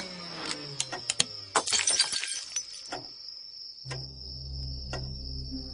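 Sound effects: a hum sliding down in pitch as if winding down, with a few sharp clicks, then glass shattering about two seconds in. A steady low hum follows, with a continuous high chirring of insects.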